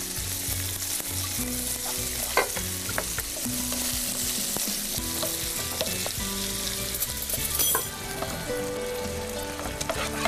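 Minced meat with onion and pine nuts sizzling in a frying pan while a wooden spoon stirs and scrapes it, with scattered clicks of the spoon against the pan.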